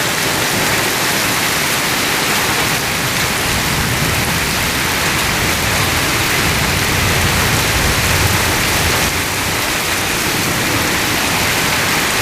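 Torrential rain falling steadily as a dense, even hiss. A low rumble swells underneath around the middle.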